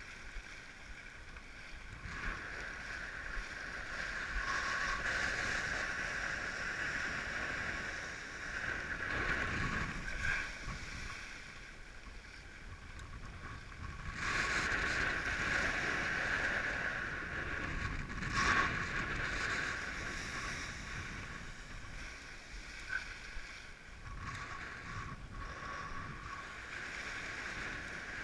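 Water rushing and splashing against a windsurf board as it sails through shallow surf and foam, with wind on the microphone. The rush swells twice, and a sharp splash hits near the end of the second swell.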